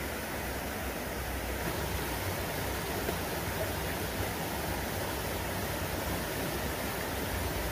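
Steady rush of running water from a rocky jungle river.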